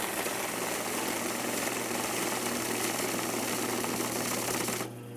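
Electric banknote counting machine feeding a stack of 10,000-won notes: a steady, fast whirr of paper over a motor hum, some twenty notes a second. About five seconds in the notes run out and only the motor hum is left.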